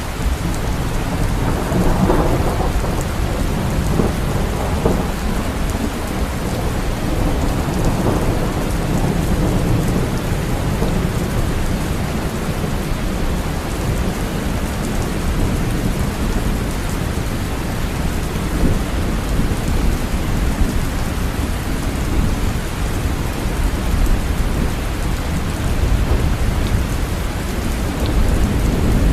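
Steady rain falling, with a low rumble of thunder underneath that swells a little around the start and again about eight to ten seconds in.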